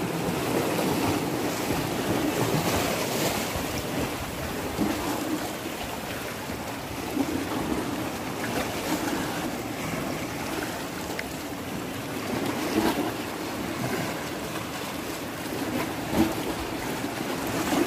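Sea waves washing and splashing against shore rocks, a steady surging wash with small swells now and then.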